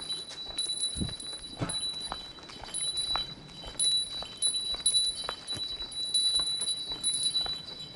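A small metal bell ringing over and over, a steady ringing tone renewed by frequent light strikes, with a couple of low thuds about a second in.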